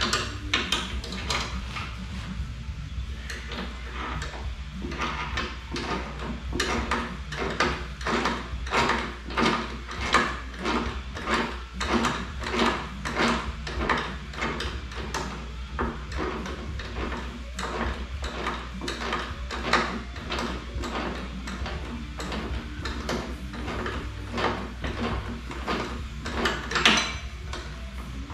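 Hand ratchet wrench worked back and forth at a steady pace of about two strokes a second, each return stroke giving a short burst of clicks, as bolts are undone to take the radiator off a CR80 go-kart engine.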